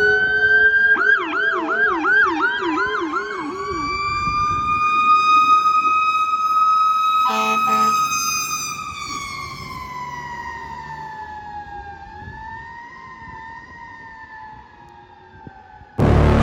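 Fire apparatus sirens: an electronic siren yelping rapidly for the first few seconds over a Federal Q mechanical siren that winds up, holds its wail, then slowly coasts down. A short horn blast comes about seven seconds in, and music cuts in at the very end.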